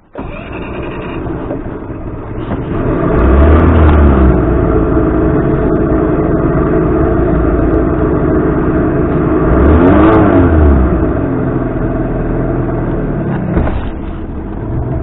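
Carbureted boat outboard motor running, revved up and back down twice, the pitch rising and falling each time. This is the hard-starting, rebuilt outboard that has been flooding out, with its cause still undiagnosed.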